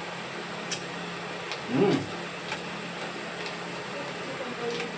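Light ticks of a utensil against a bowl as food is eaten, with a short hummed 'mm' about two seconds in, over a steady low background hum.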